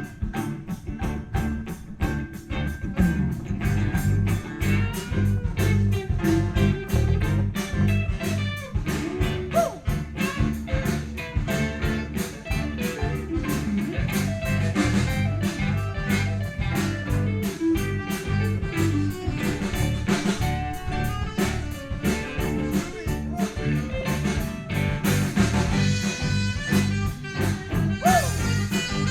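Live blues band playing an instrumental groove: electric guitar over bass and a drum kit keeping a steady beat.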